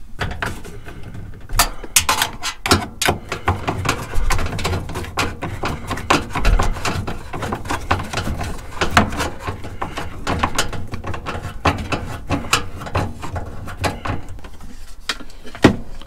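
Irregular clicks, knocks and clatter of trim pieces and tools being handled by hand, over a low rumble, with one sharp knock near the end.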